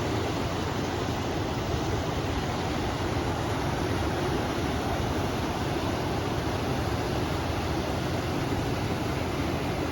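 Steady rushing of a flowing river, mixed with wind, an even unbroken noise.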